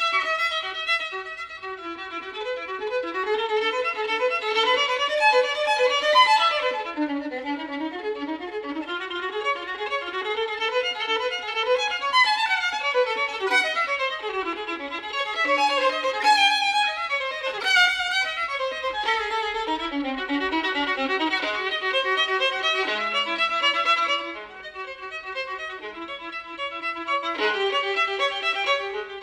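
Violin music: a single melodic line with quick runs of notes, dipping briefly in loudness past two-thirds of the way through.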